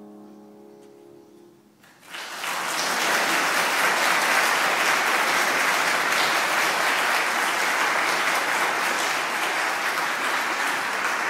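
The last held chord of a sung piece dies away, then about two seconds in an audience breaks into loud, sustained applause.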